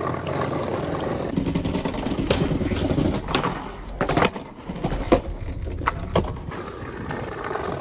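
Skateboard wheels rolling on concrete with a steady rumble, broken by a few sharp clacks of the board and trucks striking, about once a second near the middle.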